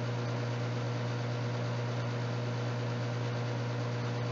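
Steady low electrical hum with an even hiss and no other sound: the background noise of the recording setup.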